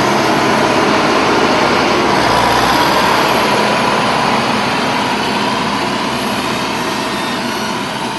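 Diesel engine of a motor grader running under load as the machine pulls away and drives off, slowly fading as it moves away.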